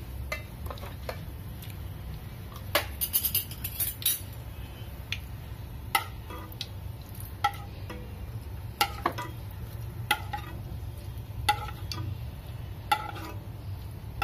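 Steel ladle clinking and scraping against a metal frying pan as oil is scooped out into a bowl: short metallic clinks with a brief ring, a few together early on, then one roughly every one and a half seconds, over a steady low hum.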